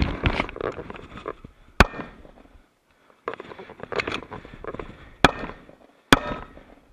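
Three gunshots: one about two seconds in, then two more near the end, less than a second apart. Between them there is scuffing and rustling as the shooter moves on the grass.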